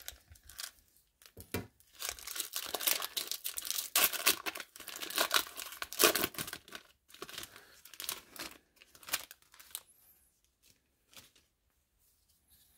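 Foil wrapper of a 1994 Score baseball card pack being torn open and crinkled: a dense crackling rustle that goes on for several seconds, then dies down to faint handling about ten seconds in.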